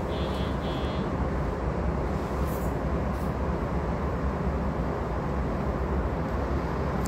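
Steady rumble and noise of a commuter train car heard from inside the cabin, with a few short high chime tones in the first second.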